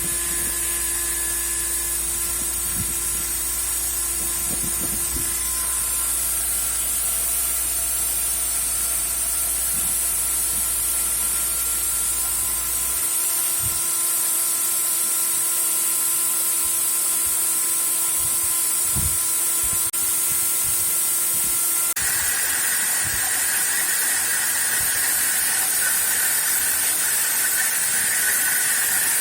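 Home-built CNC router's spindle running and milling at 2 mm depth, a steady high hiss with several steady tones over it. About two-thirds of the way through the tones change and a new, higher ringing tone comes in; this is the chatter of a frame that flexes under the cut, which the maker says needs stiffening.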